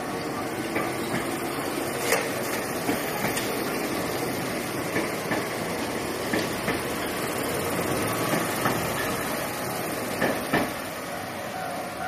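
Enoden electric train cars passing close by at slow speed: a steady rolling rumble with sharp wheel clacks on the track, often in pairs, every second or two. It grows quieter near the end as the train moves away.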